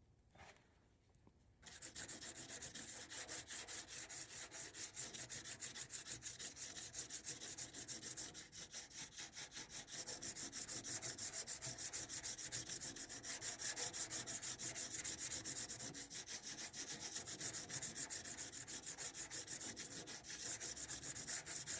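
60-grit sandpaper rubbing over hardened Bondo body filler on a car's steel body panel in quick, rapid back-and-forth strokes, starting a couple of seconds in.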